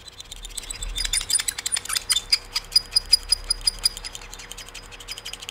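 Metal fork and spoon scraped against each other in quick strokes, about five a second, each giving a high metallic ring, starting about half a second in.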